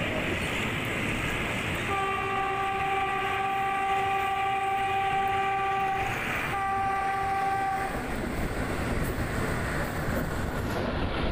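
Train horn sounding two blasts, a long one of about four seconds and then a short one after a brief gap, over the steady running noise of the train on the rails.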